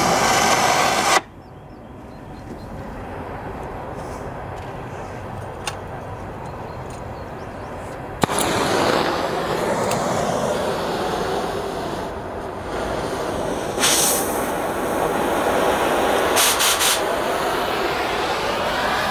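Oxy-acetylene cutting torch hissing as it cuts through the old return springs of a semi truck's drum brake shoes. The hiss drops sharply about a second in and comes back loud around eight seconds in, with a few short, louder hisses near the end.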